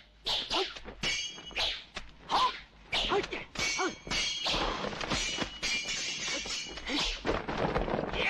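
Swords clashing in a film sword duel: a quick series of sharp metallic clangs, several ringing on with a high tone, mixed with swishes of swung blades.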